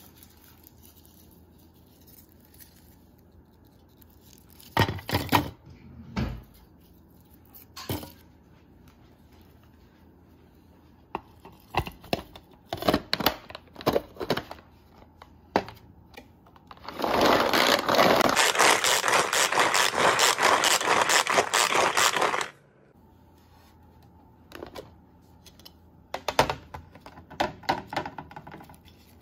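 Garlic peeler, a clear plastic bowl with a paddle, first handled with scattered clicks and knocks of plastic and cloves. Then comes about five seconds of loud, steady rattling as the paddle spins the garlic cloves against the bowl, knocking their skins loose. A few more clicks and knocks follow near the end.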